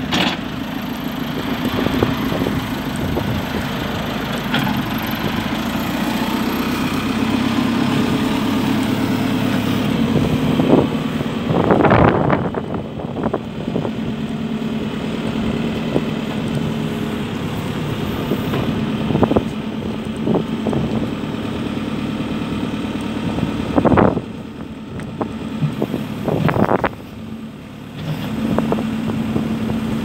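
JCB 3CX backhoe loader's diesel engine running, its pitch stepping up and down as the backhoe arm is worked, with a few sharp knocks.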